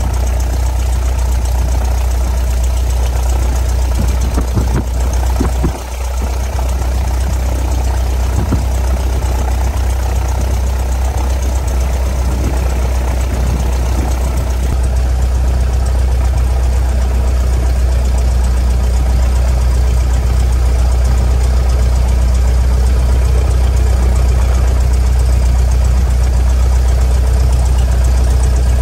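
Cessna 172S Skyhawk SP's four-cylinder Lycoming engine and propeller running at low power as the aircraft taxis, a steady low drone heard from inside the cabin.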